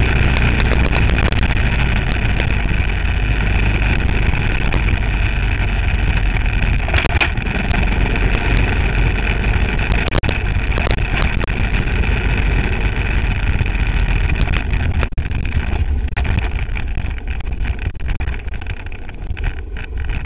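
Enduro motorcycle engine running steadily while riding a bumpy sandy dirt road, heard from a camera on the bike's rear rack, with frequent knocks and rattles from the mount. It gets quieter and more uneven over the last few seconds.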